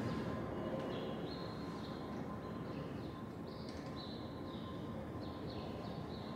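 A small bird chirping over and over in short, high notes that step up and down in pitch, over a steady background hiss.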